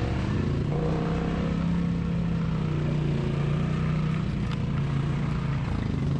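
ATV engine running at a steady, moderate pace while riding, its pitch rising and falling a little with the throttle.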